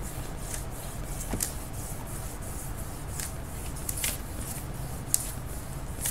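Short, scratchy strokes and rustles of paper being worked on by hand at a desk, about a dozen irregular strokes, over a low steady hum.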